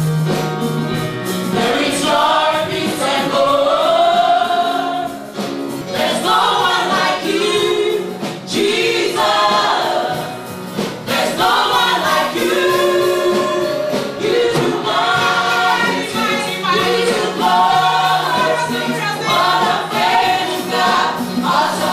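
Gospel choir singing a praise song over a steady held keyboard accompaniment.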